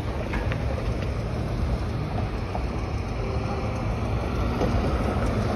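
Road traffic driving over a rail level crossing: a steady low rumble of engines and tyres, with wind buffeting the microphone.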